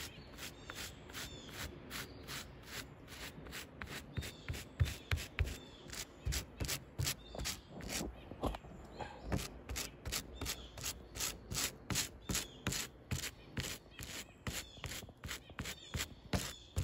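Small stiff-bristled hand brush scrubbing wet, dirt-caked old car carpet in quick back-and-forth strokes, about three strokes a second.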